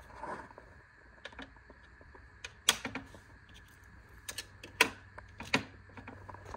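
Light clicks and taps of tools being handled in a metal tool chest, with three louder sharp clicks in the second half.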